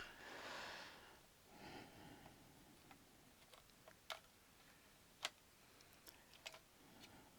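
Near silence with a few faint, sharp clicks of small screws and tools being handled on a workbench, and a couple of soft breaths in the first two seconds.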